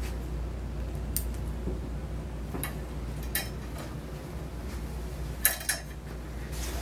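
Grooming scissors snipping through a Maltese puppy's matted fur: a handful of separate sharp metallic snips, two in quick succession about five and a half seconds in, over a steady low hum.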